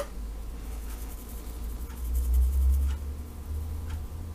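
Dried parsley flakes shaken from a small plastic-topped spice jar over vegetables in a pan, heard as a few faint ticks about once a second, over a low rumble that swells in the middle.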